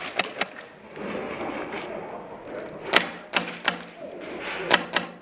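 Airsoft guns firing: sharp single shots in short groups, three at the start, three about three seconds in and two more near the end.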